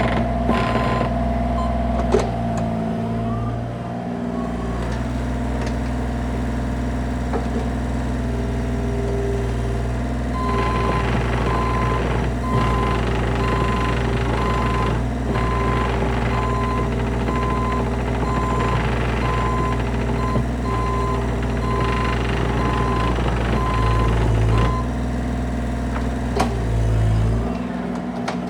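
Bobcat E35 mini excavator's diesel engine running steadily, with its travel alarm beeping repeatedly through the middle stretch while the machine tracks. The engine note rises briefly near the end.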